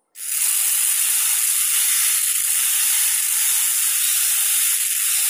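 High-speed dental air-turbine handpiece starting up about a quarter second in, then running steadily with a high hiss as its bur grinds the palatal surface of a typodont premolar for a crown preparation.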